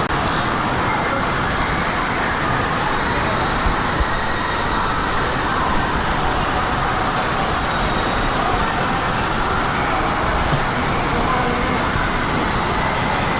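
Steady loud din of many indistinct voices over a constant rushing noise, with no single sound standing out.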